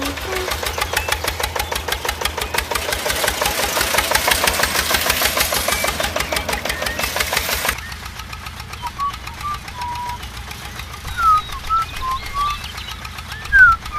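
A small engine runs with a rapid, even knock and rises a little in level, then cuts off suddenly about eight seconds in. After that there is a quieter low hum with short high chirps, like birdsong.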